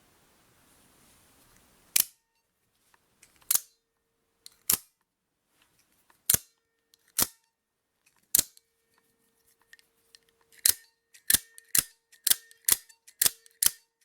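OTF automatic knife's spring-driven blade snapping out and back in through the front of the handle, about fifteen sharp clicks. They are spaced a second or more apart at first and come faster near the end.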